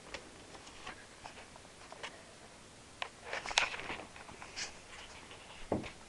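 Scattered light clicks, taps and rustles of objects being handled, busiest about three to four seconds in, with a duller thump near the end.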